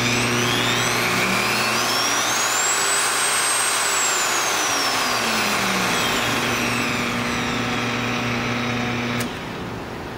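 Milwaukee 4204-1 electromagnetic drill press running, its motor whine rising to a high pitch over the first few seconds and falling back as its speed is turned up and down. A steady low hum runs under it and cuts off suddenly about nine seconds in, leaving a quieter hiss.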